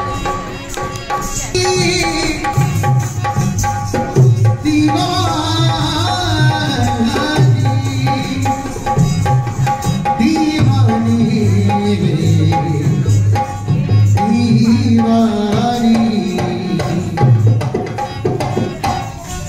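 Rajasthani folk music: a hand drum keeps up a steady rhythm under a wavering sung melody.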